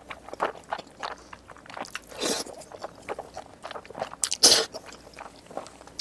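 Close-miked eating of jajangmyeon (black bean noodles): wet chewing and smacking throughout, with two slurps of noodles, one about two seconds in and a louder one about four and a half seconds in.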